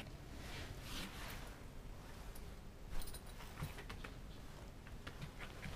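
Pembroke Welsh corgi moving about and nosing at the floor: faint rustling with a few light clicks, the sharpest about three seconds in.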